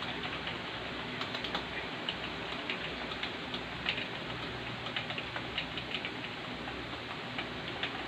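Typing on a computer keyboard: irregular quick key clicks, several a second, over a steady low hiss.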